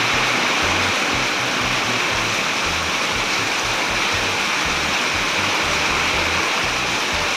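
Heavy tropical-storm rain falling steadily as a loud, even hiss, with background music carrying a low stepping bass line under it.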